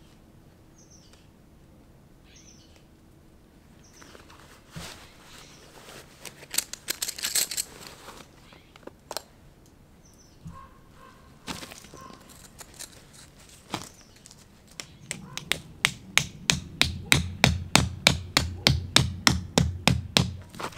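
Tent being pitched: nylon fabric and gear rustling with a few single knocks, then near the end a fast, even run of knocks, about four a second. Birds chirp faintly at first.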